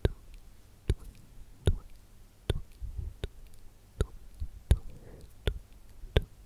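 Nine crisp, close-miked ASMR clicks, evenly paced about one every 0.8 seconds, with faint soft rustling between some of them, made as trigger sounds to go with slow hand plucking gestures.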